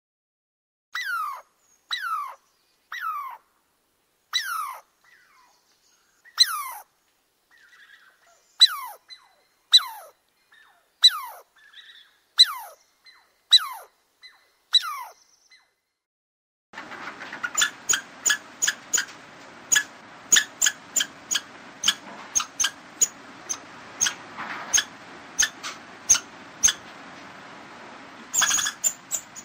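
Short high animal calls, each sliding down in pitch, about one a second with silence between. About halfway through the sound changes suddenly to rapid sharp chirps, about two a second, over a steady background hiss, with a louder burst near the end.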